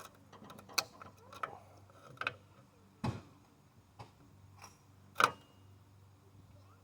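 Scattered, irregular metallic clicks and scrapes from working into an electric motor's housing to get at the windings and see if they are copper, the loudest knock coming about five seconds in.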